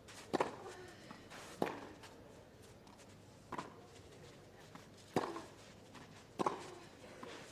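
Tennis rally: a ball struck back and forth by rackets, five sharp pops spaced one and a half to two seconds apart.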